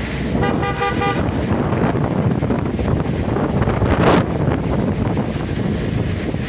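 Storm wind buffeting the microphone in a continuous rush of noise. About half a second in, a vehicle horn sounds once for just under a second, and about four seconds in there is a short louder burst.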